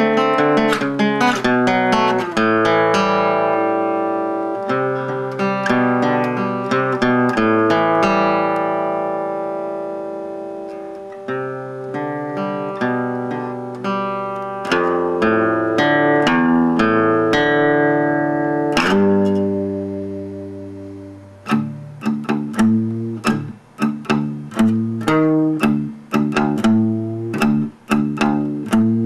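Instrumental guitar music: quick plucked notes and chords left to ring, turning to short, clipped notes about two-thirds of the way through.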